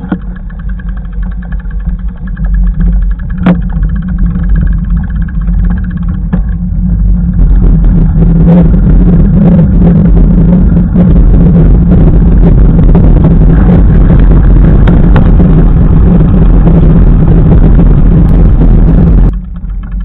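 Loud, steady low rumble of ride and wind noise on a camera carried along a dirt path. It grows louder about halfway through and cuts off suddenly just before the end.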